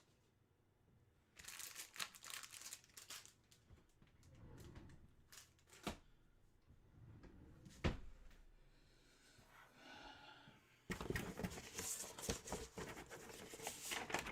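Hands handling packaging: irregular crinkling and rustling with a few sharp knocks. It gets louder and busier about three seconds before the end.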